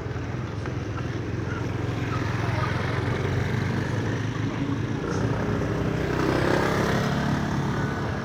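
An engine running and drawing closer, growing louder and loudest about six to seven seconds in.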